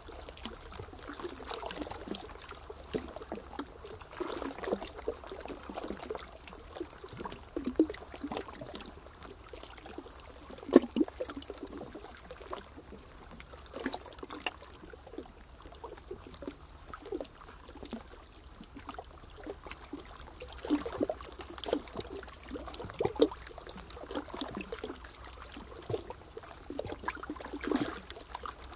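Water lapping and splashing in irregular small plops and knocks, with one sharper knock about eleven seconds in.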